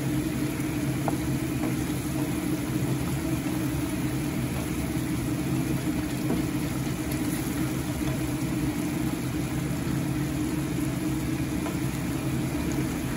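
Steady low mechanical hum, like a motor or fan running, over a chicken and tomato curry simmering in a stainless steel pan.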